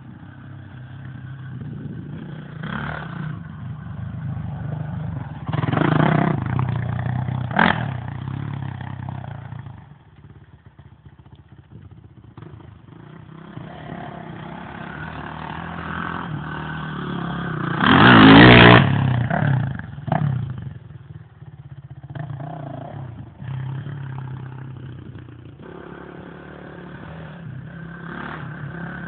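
Motocross bikes' engines revving and accelerating hard up a climbing bend, swelling and fading as bikes pass one after another. The loudest passes come about six seconds in and again past the middle.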